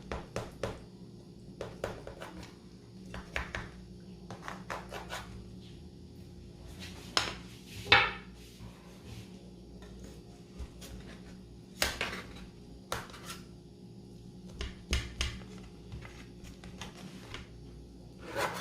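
Cutlery clinking and scraping against dishes and a pan in a run of irregular knocks and clatters, the loudest about eight and twelve seconds in.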